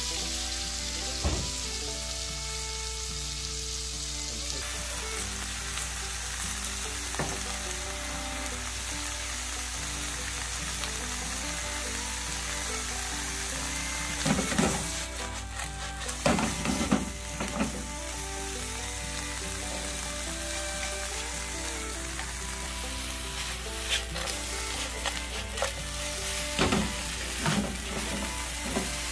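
Halved red banded lobsters sizzling steadily in melted butter in a nonstick frying pan. Sharp knocks and clatter from turning them in the pan come around the middle and again near the end, with chopsticks moving them at the end.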